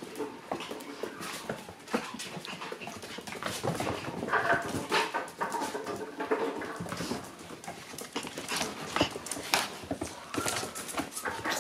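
Shiba Inu puppies whimpering and whining at play, a few short whines standing out, with many small clicks and scuffles throughout.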